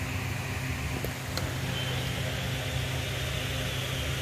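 Steady mechanical hum with an even hiss underneath, and two faint clicks just after a second in.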